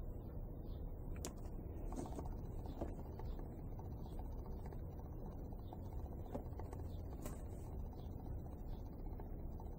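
Faint scattered clicks and taps of small parts and tools being handled on a workbench, over a steady low hum.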